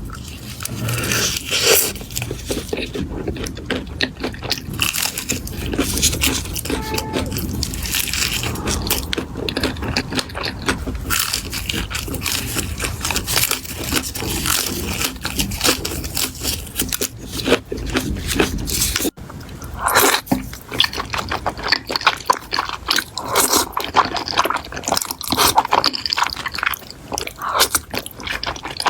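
Close-miked eating: crunching and chewing, a dense run of small crackles and clicks with a momentary dropout about two-thirds of the way through.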